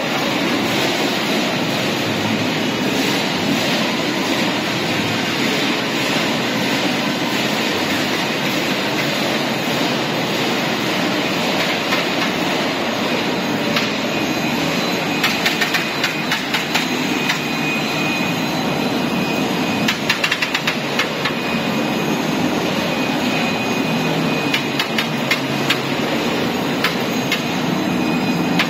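ERW tube mill line running: a steady, loud mechanical clatter from the strip accumulator and forming-roller stands. Bursts of sharp rattling clicks come about halfway through and again shortly after.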